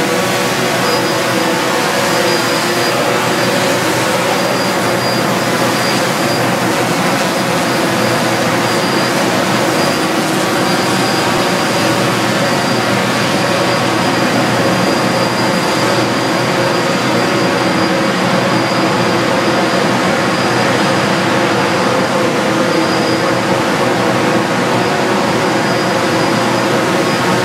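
Multirotor micro aerial vehicle's propellers and motors running steadily in flight: a dense, even drone of stacked rotor tones over rushing air, with a thin high whine above it.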